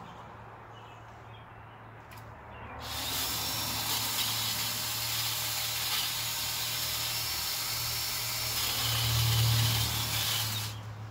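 DeWALT 20V brushless cordless pole saw starting up about three seconds in and running for about eight seconds, a steady whir that grows loudest near the end before it stops.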